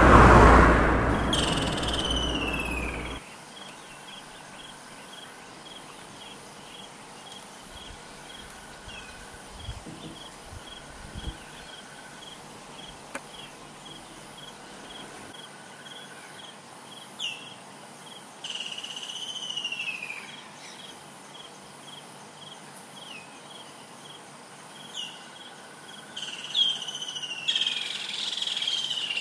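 A Suzuki Jimny towing a trailer drives past on a gravel road, a loud rush of tyres and engine that fades and cuts off about three seconds in. Then bush sounds: an insect ticking about twice a second, with birds giving descending whistles now and then, most strongly near the end.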